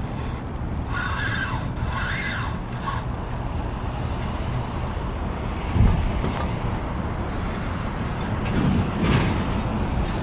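Spinning reel being cranked to bring in a hooked fish, its whir coming in spells of about a second, over a steady low rumble, with one short thump about six seconds in.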